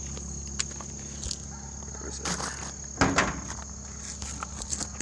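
Footsteps and scattered small knocks, with one louder knock about three seconds in. A steady high-pitched insect drone runs under them.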